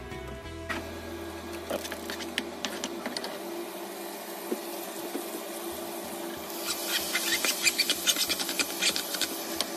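Diced ingredients sizzling in butter in a frying pan, with small crackles. About six and a half seconds in, kimchi is tipped into the hot pan and the sizzling turns louder, with dense sharp crackling.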